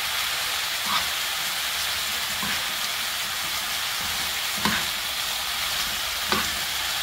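Julienned potatoes and carrots sizzling in oil in a frying pan with a steady hiss, as a spoon stirs them and knocks against the pan about four times.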